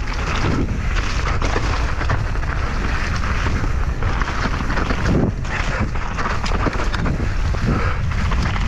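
Heavy wind buffeting on the microphone during a fast downhill mountain-bike descent, over a constant low rumble from the bike on the rough track.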